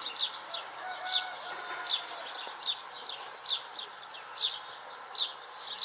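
A bird chirping over and over: a short, high, falling note about every three-quarters of a second, eight times in a row.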